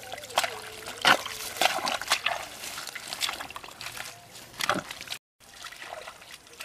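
Bare hands digging and scooping in wet mud: a run of short, irregular squelches and splatters, the loudest about a second in.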